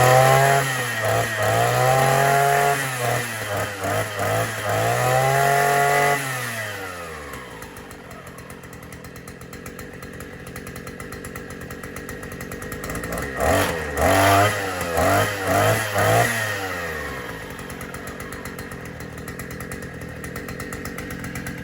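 Vevor string trimmer's single-cylinder two-stroke 1E44F engine revved three times, then dropping back to idle. Several quick throttle blips come about two-thirds of the way through before it settles to idle again.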